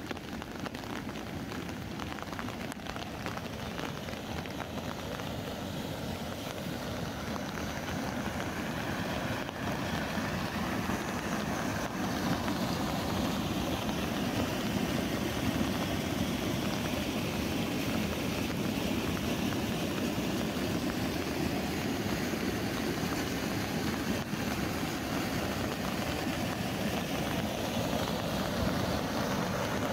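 Rain falling on an umbrella over the steady rush of river water spilling over a small cascade and weir, the rushing growing slowly louder.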